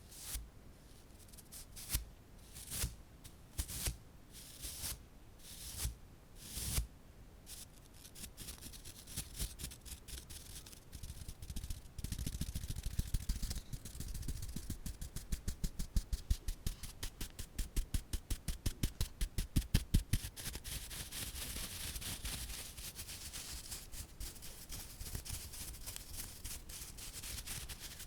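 Close-miked ASMR trigger sounds: a few soft swishes about a second apart, then quick, rapid tapping that grows denser and gives way to a hissy rustle near the end.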